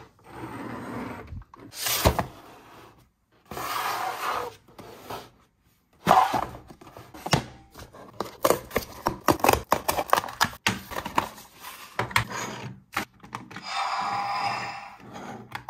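Hands handling plastic toy parts and a cardboard box, making rubbing and sliding sounds, with a busy run of light clicks and taps in the middle.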